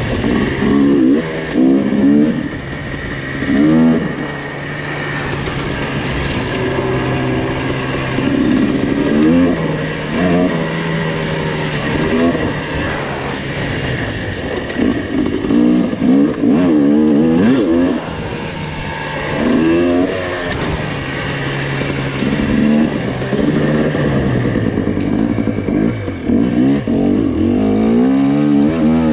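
Two-stroke dirt bike engine being ridden hard, revving up and falling back again and again as the throttle is opened and rolled off every second or two.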